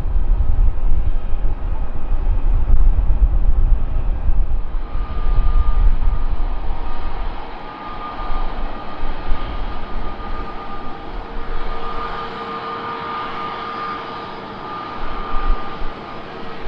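Airbus A220-300 jet landing with a loud, deep rumble. About five seconds in, this gives way to the steady, even whine of an Airbus A321neo's CFM LEAP-1A turbofans at idle as it taxis.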